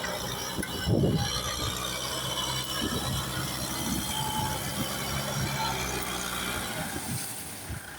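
Kubota tractor's diesel engine running steadily under a mechanical rattle and clanking, with a heavier knock about a second in.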